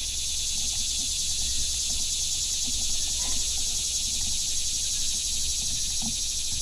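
Steady high-pitched drone of an insect chorus, with a few faint taps and clicks as a kitchen knife is clamped into a sharpening jig, around the middle and near the end.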